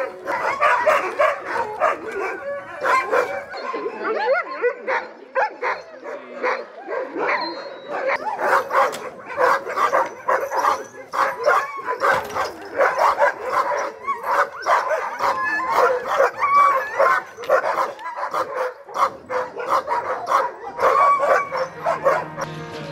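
A yard of sled dogs, husky-type, barking and yelping together in a dense, unbroken chorus of many overlapping barks.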